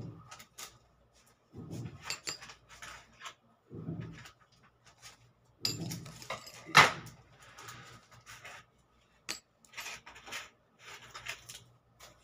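Small gold rings clinking against each other and tapping down onto paper as they are handled: a scatter of light metallic clicks, the loudest about seven seconds in, with a few soft low handling thumps between them.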